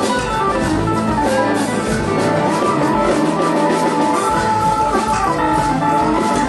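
Live band jamming: electric guitars, drum kit and keyboard playing together.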